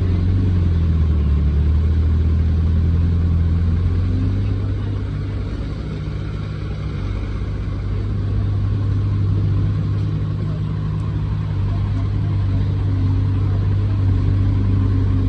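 Heavy diesel engine running steadily, its pitch dipping briefly about a second in before settling back to a steady note.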